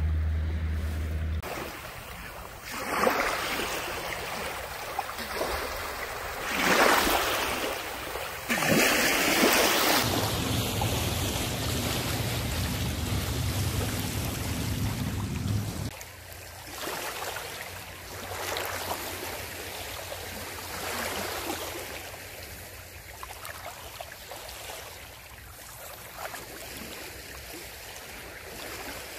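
Small sea waves washing and lapping at the water's edge, swelling every couple of seconds, with gusts of wind on the microphone, loudest in the first ten seconds. A low steady hum runs under it for several seconds in the middle and cuts off suddenly.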